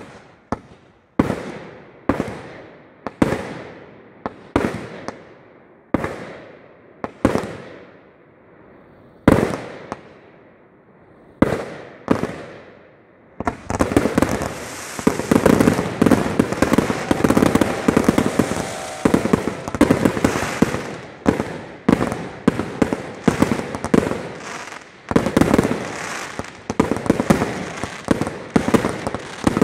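Fireworks display: single aerial shots bang about once a second, each fading away in echo. About 13 seconds in, a dense barrage of many rapid bursts and crackles over a continuous hiss takes over, thinning briefly near the 25-second mark before building again.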